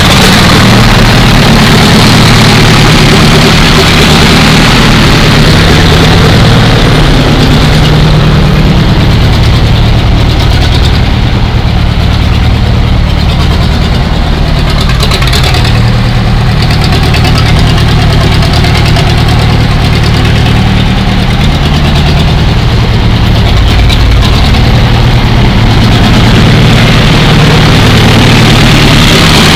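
Allis-Chalmers KO crawler's Hesselman-type engine running steadily at idle, loud and close.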